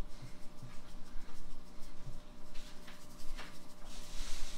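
Salt shaken from a shaker onto raw pork chops in a pan: a few light shakes.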